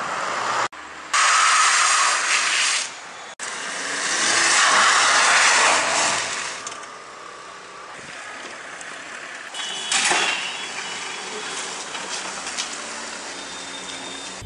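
Car driving by with road and wind noise, cut off abruptly twice by edits; loudest about a second in and again four to six seconds in, with a short surge near ten seconds.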